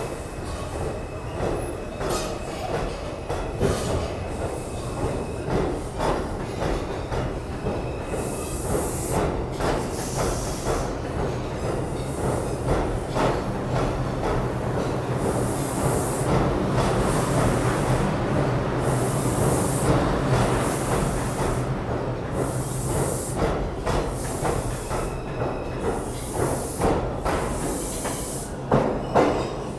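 New York City subway train pulling out of an underground station and running past at close range: a steady rumble and motor hum, with a high hissing screech from the wheels that comes and goes every second or two as the cars pass. The last car clears the platform near the end.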